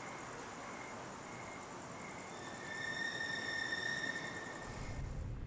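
Crickets chirping in a steady pulse over a hiss of night ambience, with a high steady whine for about two seconds in the middle. A low vehicle rumble comes in near the end as a car's headlights approach.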